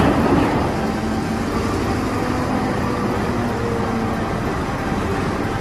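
Caterpillar 992G wheel loader's diesel engine running steadily under load as it tips a bucket of earth into a dump truck.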